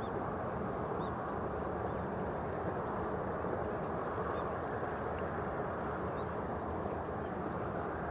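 Steady outdoor background noise with no rise or fall, with a few faint, short high chirps scattered through it.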